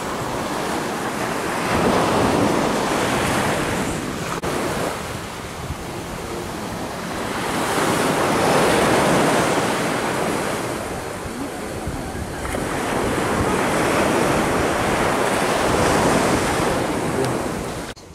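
Sea surf on a sandy beach, swelling and fading three times as waves break, with wind buffeting the microphone.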